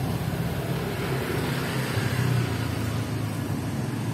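Steady low mechanical hum of a running motor, even in level throughout.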